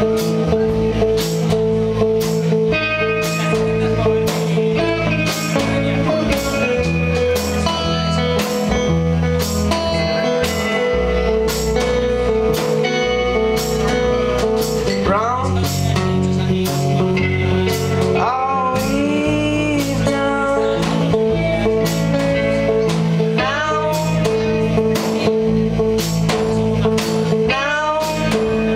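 Small band playing live: strummed acoustic guitar over a steady drum-kit beat, with an electric instrument and low bass notes. A man starts singing about halfway through.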